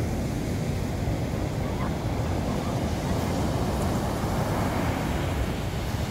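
Sea surf breaking and washing up a sandy beach, a steady rush that swells about halfway through, with wind rumbling on the microphone.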